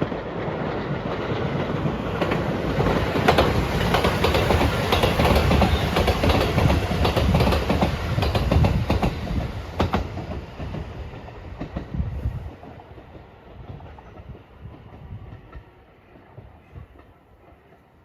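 Passenger train passing close by, its wheels clacking over the rail joints, then fading away over the last several seconds.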